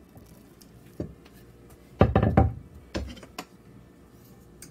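Wooden knocks and clatter as a wooden rolling pin is put down on a countertop. There is a loud cluster of knocks about two seconds in, with lighter taps and clicks before and after.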